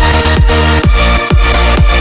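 Background electronic dance music with a pounding kick drum, about two beats a second, and a bass line.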